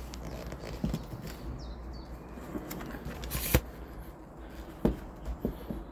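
A few scattered knocks and clicks of handling in the back of a van, the sharpest about three and a half seconds in and another near five seconds, over a low steady rumble.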